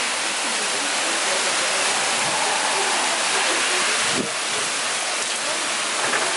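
Heavy wind-driven rain from a hurricane rainband pouring down: a loud, steady rushing hiss.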